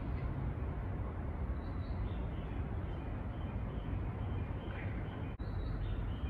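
Steady low outdoor rumble with faint, short bird chirps now and then, and a brief dropout in the sound about five seconds in.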